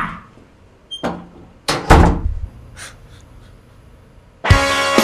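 A door clicking about a second in, then thudding loudly just under two seconds in. Near the end, music with drums and guitar starts.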